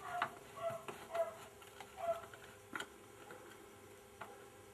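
Screwdriver turning small screws into a metal amplifier chassis cover: a handful of light clicks at irregular intervals, some followed by a short squeak.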